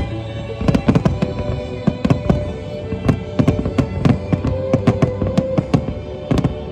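Fireworks going off in quick succession: many sharp bangs and crackles, several a second, over music with long held notes.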